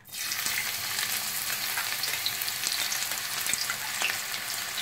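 Finely chopped onion dropped into hot oil in a kadhai, starting to sizzle suddenly as it goes in, then frying steadily with small crackles and pops.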